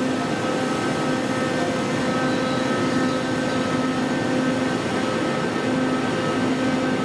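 Keisei AE-series Skyliner electric train standing at the platform, giving a steady hum with several steady whining tones over an even noise.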